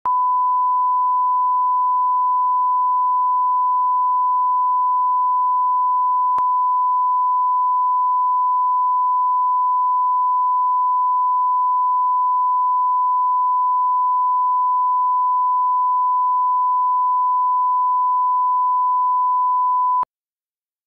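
A steady, loud pure tone at about 1 kHz, the line-up test tone placed at the head of a video master, cutting off suddenly near the end. A faint click about six seconds in.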